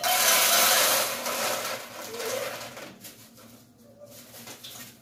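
Dry lentils (dal) poured from a plastic bag into a rigid plastic container, a rushing rattle of grains that is loudest in the first second and tails off over the next two.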